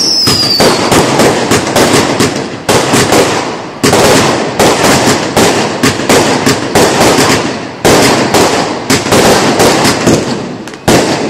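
Fireworks going off in a rapid, continuous barrage of bangs and crackling, several a second, with a few louder reports standing out. A falling whistle fades out at the very start.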